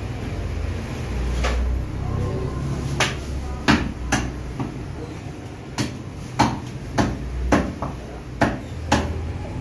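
Butcher's cleaver chopping beef into chunks on a thick wooden log block: about ten sharp chops, a few scattered at first and then roughly two a second, over a low steady rumble.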